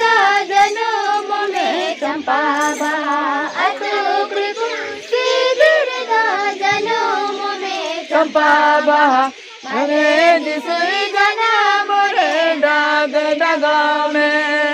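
A group of children and young adults, with a woman's voice leading, singing a Santali Sohrai folk song together in unison, without instruments. The singing breaks off briefly about two-thirds of the way through, then resumes.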